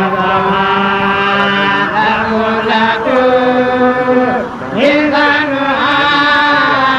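Religious chanting by a single voice in long, drawn-out held notes, the pitch changing about three seconds in and again near five seconds.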